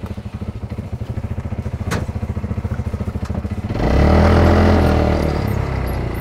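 Polaris RZR 200's small single-cylinder engine idling with a fast, even putter, then revving louder about four seconds in as the side-by-side pulls away.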